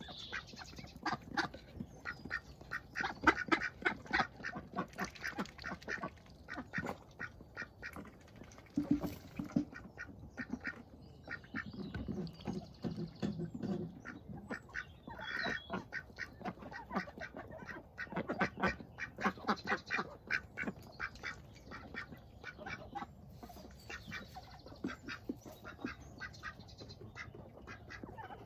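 Runner ducks quacking softly now and then while foraging, with many quick clicks and snaps from their bills working through the ground.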